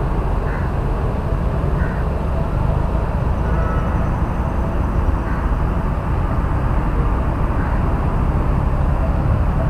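Wind buffeting the microphone of a body-worn action camera: a steady, loud low rumble with no pitch to it.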